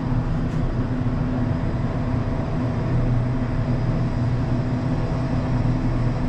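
Panoramic passenger elevator running, a steady low mechanical hum.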